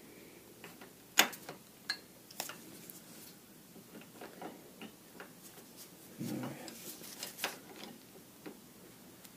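Scattered light metallic clicks and taps of a spanner wrench working the steering-head bearing ring nut on a Yamaha V-Star 1300, with a few sharper clicks among them.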